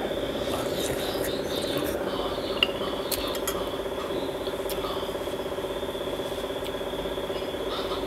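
Eating from a glass bowl: a metal spoon and chopsticks clink and scrape against the glass, with one sharp clink about two and a half seconds in, over a steady low hum and a faint high whine.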